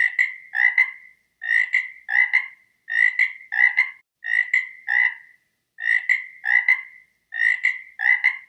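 Frog croaking: short rattling croaks in pairs, a pair about every second and a half, six pairs in all.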